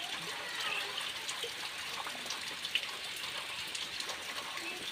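Steady heavy rain falling on wet ground and puddles, an even hiss with a few faint taps.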